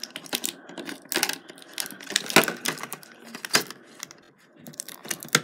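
Scissors snipping through a clear plastic blister pack, with the clicks and crackle of the stiff plastic being handled: irregular sharp snips and clicks, with a short pause about four seconds in.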